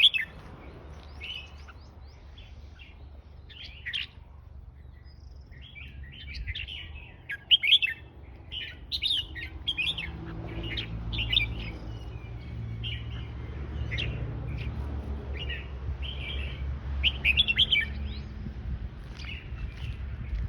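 Red-whiskered bulbul singing: repeated short chirping, warbled phrases with brief pauses between them. A low steady hum underneath grows louder about halfway through.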